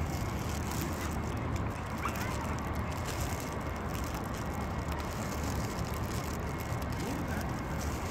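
Steady outdoor background rumble of distant city traffic, with no distinct event; a faint short chirp about two seconds in.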